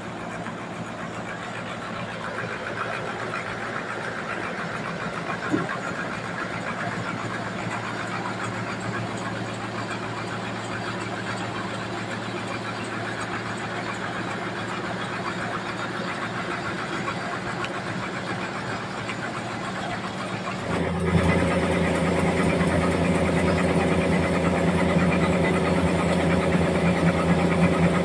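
Large band sawmill running, its blade sawing lengthwise through a big trembesi (rain tree) log: a steady machine drone with a single click about five seconds in. About three quarters of the way through the drone turns suddenly louder and deeper.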